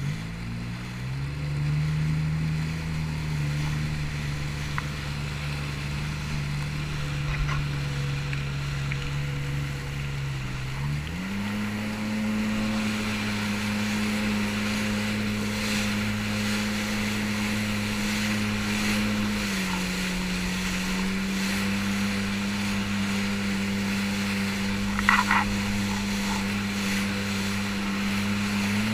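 Watercraft engine running at steady speed, with wind and water rushing. Its pitch climbs about a second in, steps up sharply near the middle and drops a little a few seconds later.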